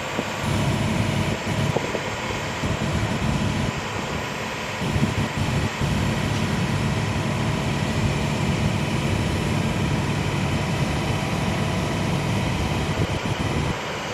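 Long-arm excavator's diesel engine running steadily at a loud, low pitch, with a few brief dips in level.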